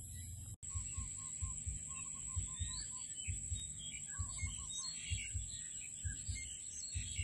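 Birds chirping and calling over a rice paddy at dusk, with series of short repeated notes and a steady high-pitched drone, broken by low thumps. The sound drops out briefly about half a second in.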